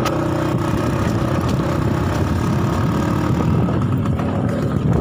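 Bajaj M80's single-cylinder engine running at a steady pace while the bike rides along.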